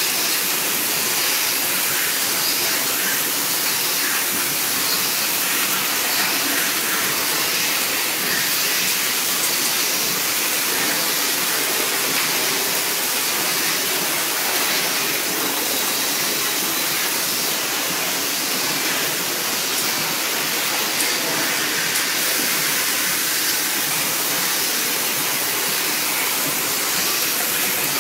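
Automatic cap hot stamping machine running: a steady hissing machine noise with a faint, regular repeating beat as it cycles.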